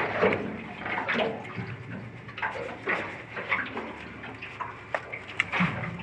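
Water sloshing and splashing in irregular bursts, with a faint low hum underneath.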